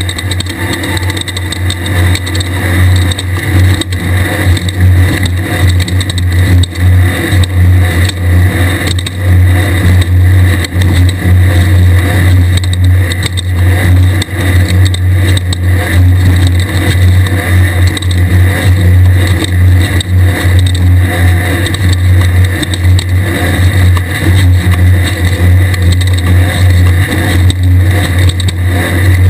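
Class 1600 desert race buggy's air-cooled Volkswagen engine running hard through a race lap: a steady low drone whose loudness rises and dips constantly.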